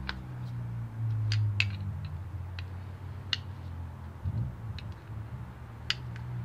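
Screwdriver working small screws into a motorcycle carburetor's accelerator-pump cover: scattered sharp metallic ticks as the tip seats and turns, over a low steady hum.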